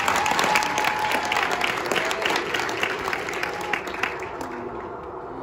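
Audience applauding with scattered shouts and cheers, dying down near the end.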